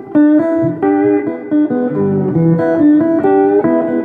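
Melobar 50th-anniversary six-string electric slide guitar played with a steel bar: a steady melodic run of picked notes, some ringing together as chords.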